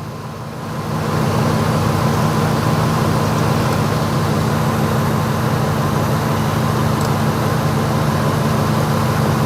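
Ford F-150 engine idling steadily, growing louder about a second in and then holding; the truck has a cylinder misfire under diagnosis.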